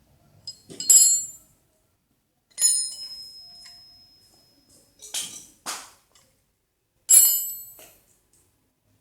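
Steel clutch parts and tools clinking on metal, three sharp ringing clinks, one ring hanging on for a couple of seconds, with a short metallic rattle between them.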